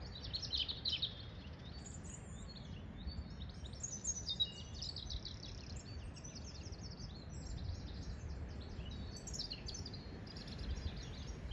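Several songbirds singing at once, a busy chorus of short chirps and trills, over a steady low rumble.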